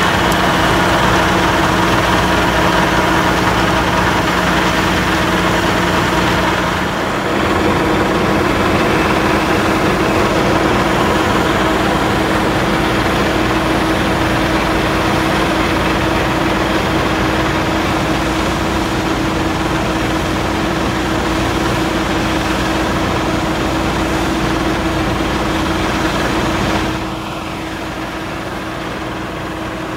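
Heavy engines of snow-clearing machinery running steadily. The sound shifts about seven seconds in and drops to a quieter running sound near the end.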